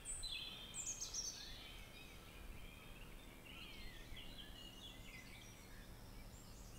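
Faint birdsong: several birds chirping in short, falling whistled notes, over a low steady hum.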